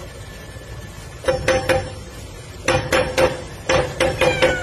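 Metal padlock and barrel bolt rattling against a wooden door as a cat paws at it, in three quick bursts of sharp, ringing clanks.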